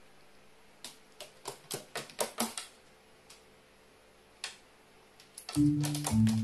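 About a dozen sharp taps and clicks in quick succession over a couple of seconds, with a few more later, from a carrion crow on its wooden board. About five and a half seconds in, light marimba-like music starts and becomes the loudest sound.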